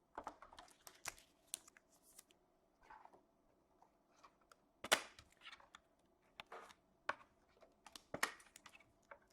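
Faint scattered clicks and snaps of trading cards and their packaging being handled, with a sharper snap about five seconds in and another just past eight seconds.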